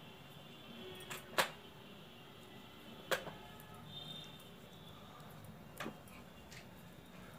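Knitting needles clicking and tapping against each other as stitches are worked: a few sharp separate ticks, the loudest about a second and a half in, others around three seconds in and near six seconds.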